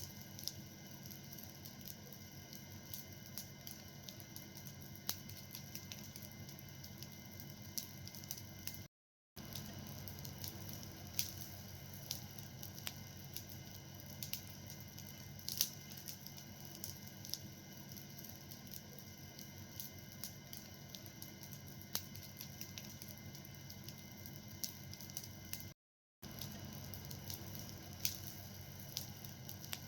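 A fire burning, with irregular crackles and pops over a steady soft hiss. The sound cuts out completely twice for a moment, about a third of the way in and again near the end.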